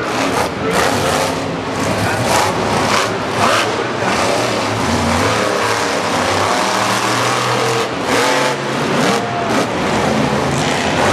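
Monster truck engines, the Chevy-powered Speed Energy Bigfoot #19's among them, revving hard as the trucks race. The pitch climbs and drops again and again.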